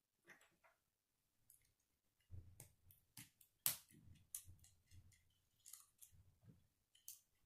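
Plastic K'nex rods and connectors clicking and rattling as pieces are snapped on and the chain is handled, with soft knocks mixed in. The clicks are quiet and irregular, and the sharpest comes about three and a half seconds in.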